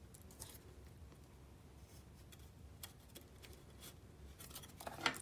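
Faint handling of paper: a few soft, scattered taps and rustles as a glued paper piece is pressed against the side of a paper basket, with a small cluster of louder ticks near the end.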